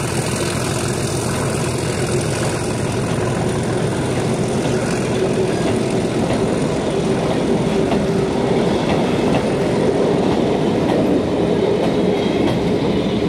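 Freight train of sliding-wall bogie vans rolling past close by: a steady rumble of wheels on rail.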